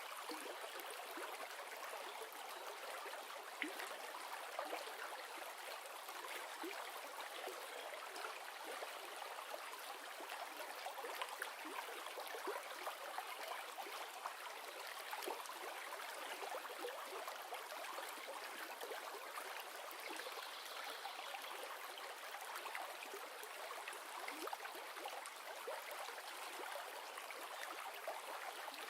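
River or stream water running and splashing steadily, with a dense patter of small splashes and no let-up.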